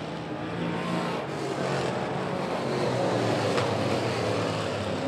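Several dirt-track Sportsman race car engines running at low speed, a steady mix of overlapping engine tones.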